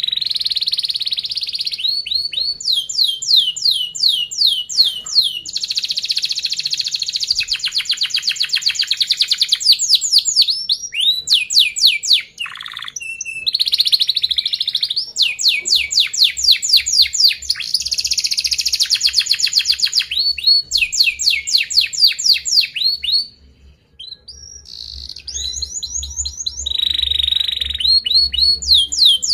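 Yellow domestic canary singing a long, nearly unbroken song of fast trills and rolls, runs of rapid downward-sweeping notes, with a brief pause about five seconds before the end.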